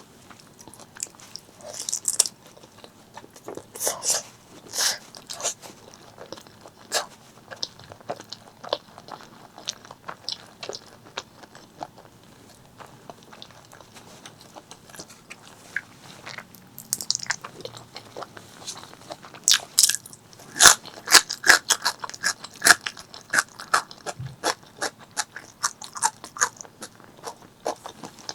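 Close-miked eating sounds of a person eating spicy pork leg curry with rice: chewing and biting, with short sharp clicks and crunches that come thickest in the last third.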